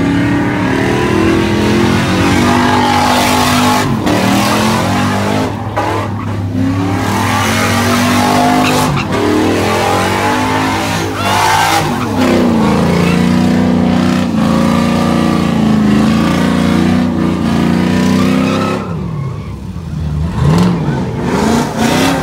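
A car's engine revving hard up and down repeatedly over a continuous hiss and squeal of spinning tyres, as in a burnout or donuts. Near the end the revs drop briefly, then climb again.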